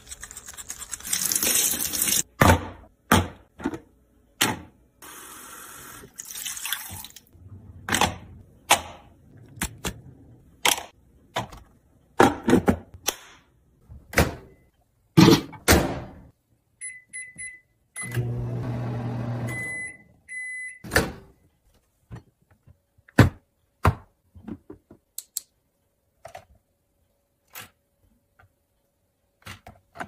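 Kitchen handling of baby-bottle parts: a bottle brush scrubbing a teat, then many separate sharp clicks and knocks of plastic pieces. Around the middle, a microwave oven's keypad beeps, the oven runs with a low hum for about two seconds, and it beeps again as it stops.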